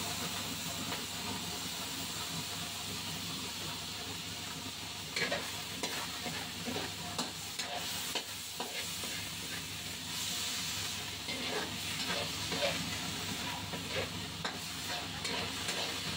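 Sliced chorizo and onions sizzling in a wok in a splash of soy sauce, with a steady hiss. From about five seconds in, a metal spatula scrapes and stirs against the pan in short irregular strokes.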